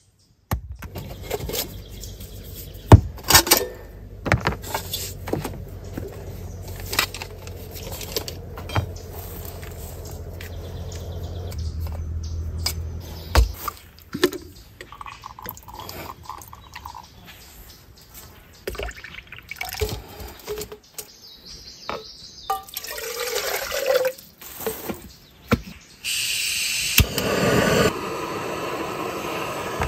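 Metal clinks and knocks as a backpacking canister stove and its finned cooking pot are unpacked and put together. Near the end the stove's gas burner is lit and hisses steadily under the pot.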